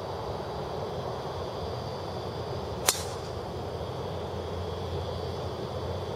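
Driver striking a golf ball off the tee: one sharp crack about three seconds in, over steady background noise.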